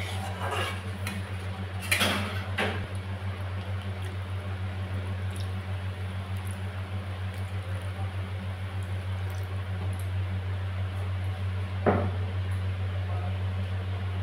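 Spatula scraping and knocking against an aluminium kadai while stirring a simmering spinach-and-potato curry, several times in the first three seconds and once more near the end, over a steady low hum.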